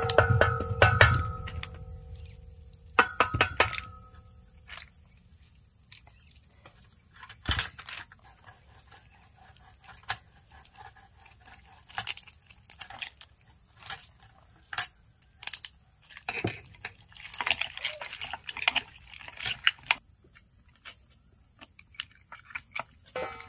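Cockle shells clicking and clattering as gloved hands pry cooked cockles open over a wooden mortar, a run of scattered sharp clicks with handling noise between. A short ringing tone sounds at the start and again about three seconds in.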